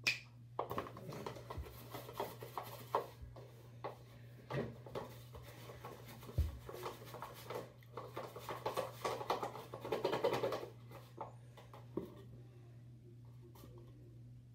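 A stick stirring and scraping a thick, sticky mixture in a plastic cup: irregular small scrapes and taps against the cup, busiest about two-thirds of the way through, over a steady low electrical hum.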